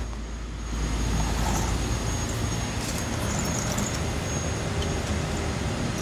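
Heavy-duty wrecker tow truck's diesel engine running steadily: a constant low rumble.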